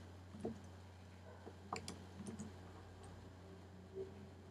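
A few faint, scattered clicks of a computer keyboard and mouse over a low steady hum.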